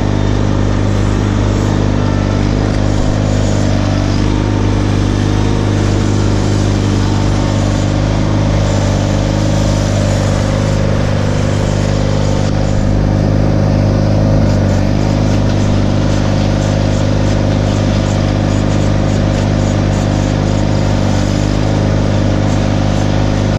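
Tractor engine running steadily at a constant speed.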